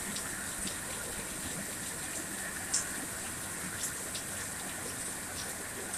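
Steady rain falling, a constant hiss, with a few sharper drops tapping close by, the loudest a little under three seconds in.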